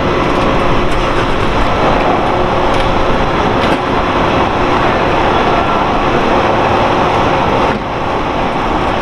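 Small fire pump truck's engine running steadily, an even mechanical drone that dips briefly near the end.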